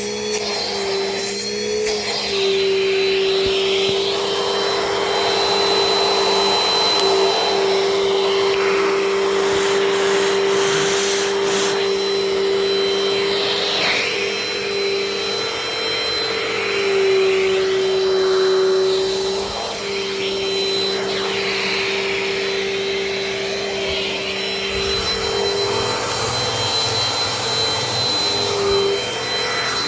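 Older vacuum cleaner running steadily, a motor hum with a thin high whine over the rush of air. Its pitch wavers slightly as the nozzle is worked over couch cushions.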